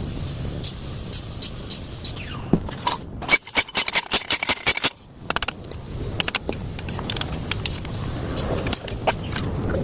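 Metal hand tools clicking and scraping against wheel parts, with a quick run of rapid metallic clicks in the middle, like a ratchet being worked.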